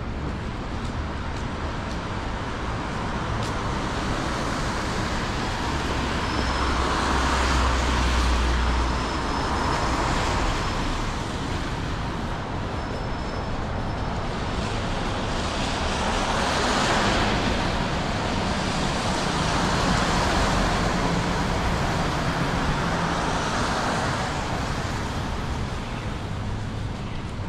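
City street traffic: a steady hum of vehicles, with several passing one after another, each swelling and fading over a few seconds. A deep rumble comes under the first pass, about seven seconds in.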